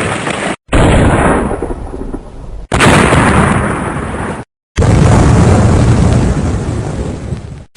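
Loud booming blast sound effects spliced back to back: each blast starts sharply and fades into a rumble. Three abrupt silent cuts break them up, a little under a second in, about two and a half seconds in, and near the middle.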